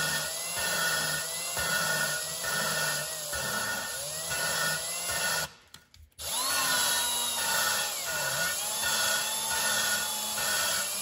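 Steel valve grinding against its seat in lapping compound, spun by a drill on the valve stem: a gritty rasp with a drill whine that swells and eases about twice a second as pressure on the valve is let off and put back. It stops briefly about five and a half seconds in, then resumes. This is the stage of lapping where the seat and valve face are being ground smooth.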